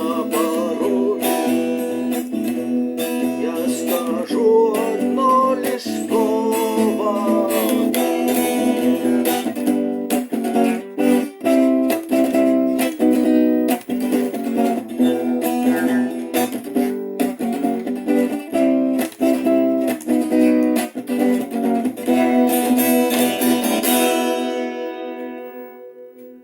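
Acoustic guitar strummed in a steady rhythm, with a voice singing a wavering melody over it for the first several seconds. Near the end the strumming stops and the last chord rings out and fades away.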